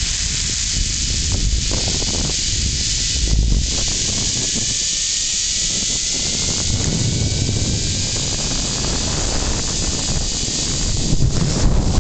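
Rushing wind buffeting the microphone of a rider speeding down a long zipline cable, a steady hiss. A faint whine from the trolley's pulleys running along the steel cable rises slowly in pitch through the middle, as the ride picks up speed.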